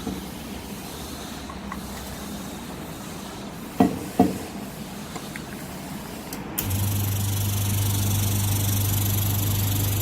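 Two sharp knocks a little under half a second apart, then a debubber machine starts up with a steady loud hiss of air and a low mains hum as it runs to pressurize its chamber.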